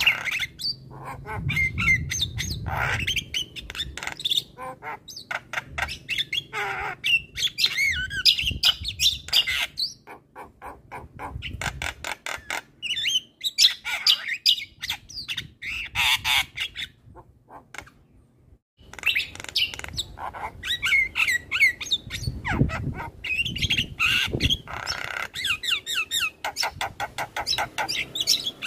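Javan myna singing in full song: a fast, continuous chatter of short clicking notes mixed with higher calls. A short silence breaks it about two-thirds of the way through.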